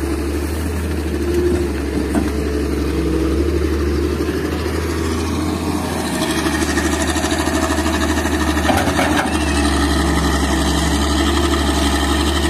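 Diesel engines of a Hitachi hydraulic excavator and a dump truck running steadily at work, a low engine drone that gets a little louder about six seconds in.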